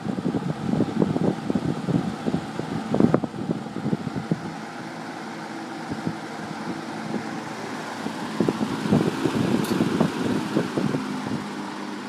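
Vintage Dominion box fan running on high: a rush of air from the blades buffets the microphone over a steady low motor hum. The buffeting is strongest in the first few seconds and again near the end.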